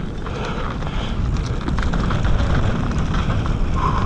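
Mountain bike riding fast down a leaf-strewn dirt trail: wind buffets the action-camera microphone in a steady low rumble, with tyre noise on dirt and leaves and a continual rattle of small knocks from the bike.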